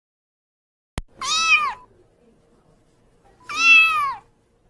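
A kitten meowing twice, two high meows about two seconds apart, each falling in pitch at the end, with a short click just before the first.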